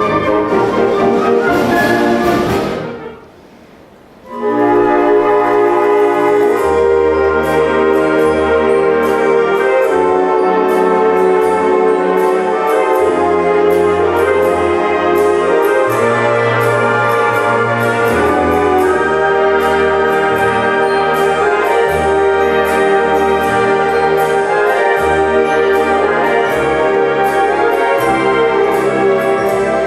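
Concert wind band playing, with the brass prominent. The music breaks off about three seconds in and starts again a second later, now over a steady percussion beat.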